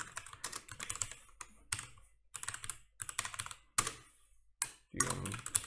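Computer keyboard typing: quick, irregular runs of key clicks with short pauses between them.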